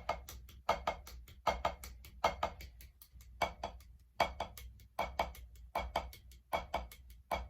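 Drumsticks striking a drum or pad in a rudiment pattern. The strikes come in short clusters repeating slightly faster than once a second.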